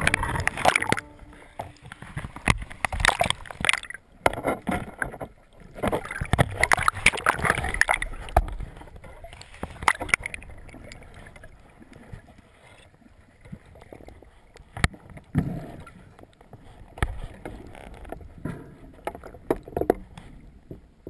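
Water sloshing and splashing around a waterproof action camera as it dips through the surface, in irregular bursts with knocks against the housing. It settles to a quieter underwater wash in the second half, broken by a few bubbly splashes.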